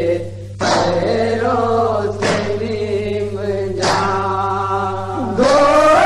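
Male voices singing a nauha, a Shia Urdu lament, in chorus, holding long drawn-out notes; a new phrase begins about every second and a half.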